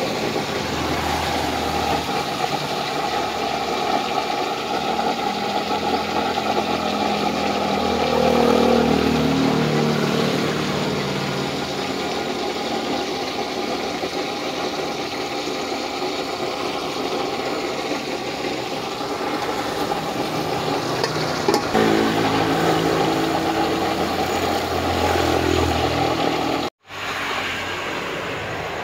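Steady hiss of a homemade blowerless used-oil stove burning under a wok, with chicken pieces sizzling in hot oil. An engine-like drone swells and fades twice, about eight seconds in and again past twenty seconds, and the sound cuts out for an instant near the end.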